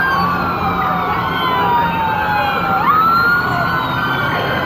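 Emergency-vehicle sirens wailing, more than one at once: the loudest sweeps slowly down in pitch, then jumps sharply back up about three seconds in.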